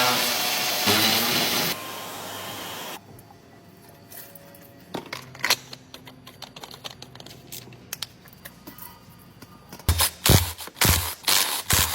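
A loud hiss for the first couple of seconds that drops to a softer hiss, then scattered sharp metal clinks and taps of tools, and a run of loud knocks near the end.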